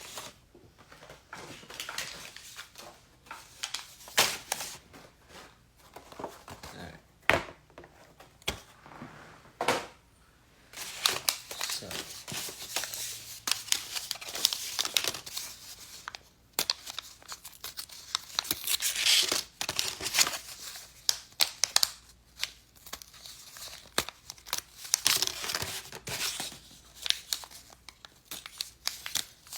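Plastic packaging of Million Warriors figure packs being crinkled and torn open by hand: irregular crackling and sharp clicks, busier from about eleven seconds in.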